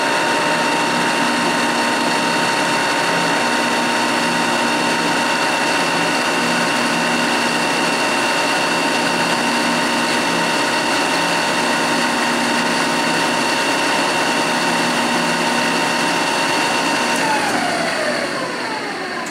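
Spindle and geared head of a Tominaga TRE-1700D radial arm drill press running at top speed, 2000 RPM, with a steady whine made of several held tones. About 17 seconds in, the pitch falls and the sound fades as the spindle slows down.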